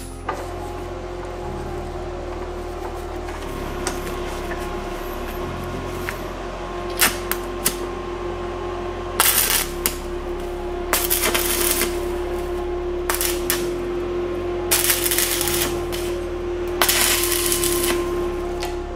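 Arc welding on a bundled chainsaw chain, crackling and hissing in four bursts of about a second each, with a few metallic clicks before them. Steady background music plays under it.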